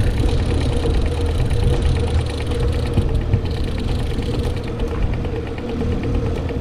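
Mercury outboard motor running steadily at trolling speed: a constant low rumble with a steady droning tone.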